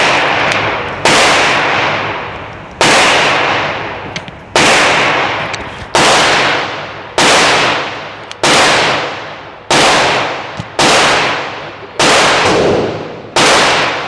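Slow, steady semi-automatic pistol fire from a Smith & Wesson M&P 2.0 in .40 S&W: about ten shots, one every second and a half or so, each with a long echoing tail.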